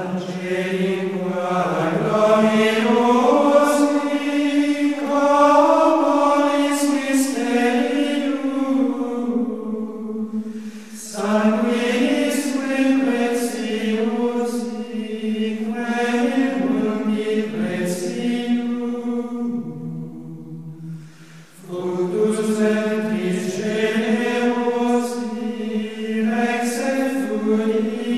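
Slow, chant-like choral vocal music with long held notes, in three long phrases with brief dips about ten and twenty seconds in.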